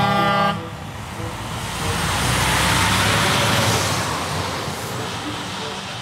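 MAN semi-truck with a silo tanker trailer: its horn sounds and cuts off about half a second in. Then the truck drives past, its tyre and engine noise swelling to a peak in the middle and easing off.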